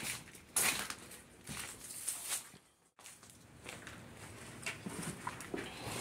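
Irregular footsteps scuffing and crunching over a debris-strewn floor, with scattered knocks and clicks. The sound cuts out completely for a moment about halfway through.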